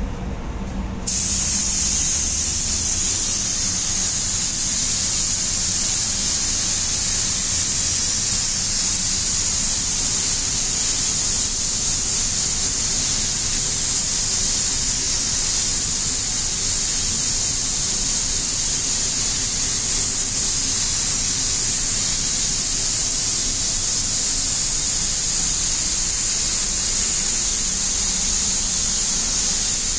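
Gravity-feed paint spray gun laying down the final coat, a steady high hiss of compressed air and atomised paint that switches on sharply about a second in. A low hum sits underneath.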